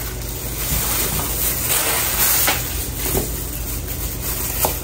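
A steady hiss, with a few faint, brief sounds over it.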